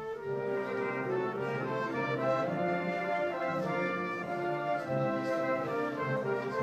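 Orchestral music with brass, playing held notes that change every half-second or so.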